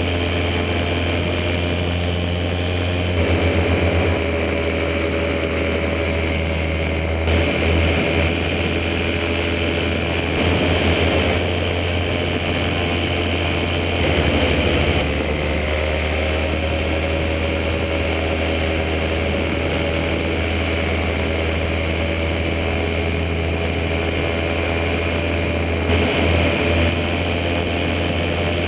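Paramotor's backpack engine and propeller running steadily in flight, its pitch drifting slightly and swelling briefly a few times, with wind buffeting the microphone.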